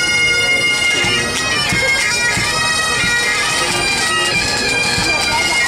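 Military pipe band's bagpipes playing a tune, the melody moving over a steady drone.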